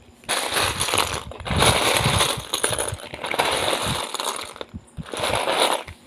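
Small hard plastic Lego pieces clattering and rattling together in a dense run of clicks for about four seconds, then again in a shorter burst near the end.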